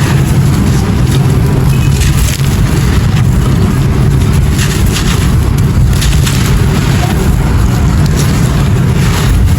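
Dry clay pot material being crushed and crumbled close to the microphone: a loud, continuous gritty crunching over a heavy low rumble, with many small crackles.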